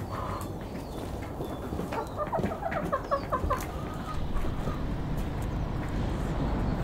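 Hens clucking, with a quick run of short clucks about two to three seconds in. A low steady rumble grows louder in the second half.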